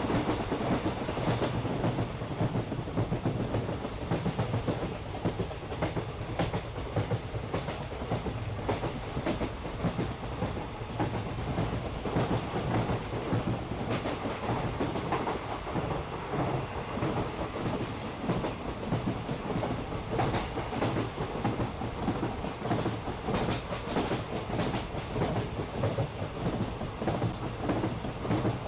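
Small park toy train running on its track: a steady rumble of wheels and cars, its loudness pulsing over and over with the clatter of the running gear.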